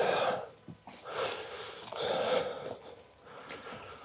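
A man breathing hard in a few puffs, each about half a second long, from the effort of pushing a heavy motorcycle along.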